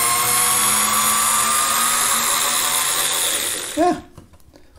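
Black and Decker 9019 cordless screwdriver, refitted with an 18650 lithium-ion cell, running in reverse to back a screw out of wood: a steady motor and gearbox whine that rises slightly in pitch. It stops just before four seconds in, after a short final blip.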